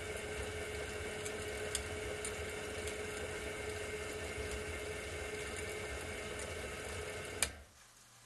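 Gas glassworking torch flame hissing steadily against a turning borosilicate glass tube on a glass lathe, with a steady hum underneath. Near the end it cuts off abruptly with a sharp click and everything goes much quieter.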